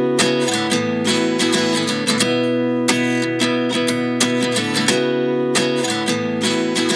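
Background music: a guitar strummed in a steady rhythm, with no singing.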